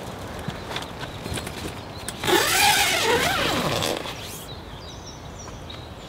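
Footsteps of a person walking on the ground at the mouth of a bivvy, as short scattered knocks. About two seconds in comes a louder rough rasping sound with a wavering pitch, lasting nearly two seconds.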